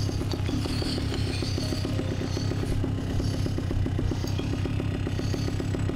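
A paramotor's backpack engine running steadily at low throttle, a fast even putter that stays level in pitch.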